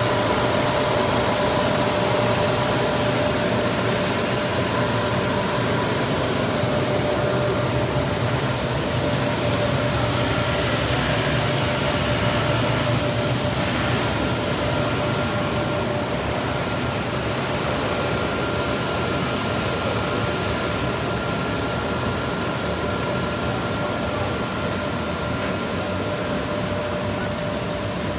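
Paper slitter-rewinder and its trim-waste extraction blower running: a steady mechanical rush of air and machinery with a few constant whining tones over it.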